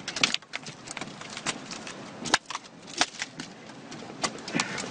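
Irregular sharp knocks and scuffs, about one or two a second, over a faint hiss: footsteps and handling noise on rocky ground.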